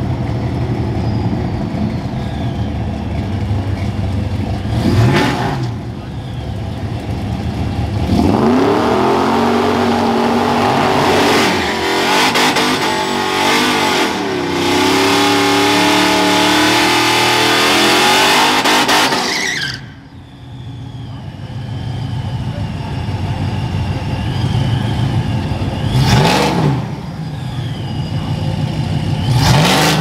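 2011 Ram 1500 pickup idling, with a short rev about five seconds in. About eight seconds in it does a burnout, engine held at high revs with the rear tyres spinning for about eleven seconds, and cuts off abruptly. It then idles again, with two short revs near the end as it creeps forward.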